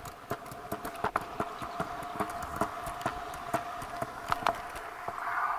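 Kick scooter rolling over a concrete sidewalk with a 3.5-inch floppy disk scraping along the concrete beneath it, its plastic shell being ground away. A steady scraping whine runs under irregular clicks and knocks from the wheels and deck, then cuts off suddenly at the end.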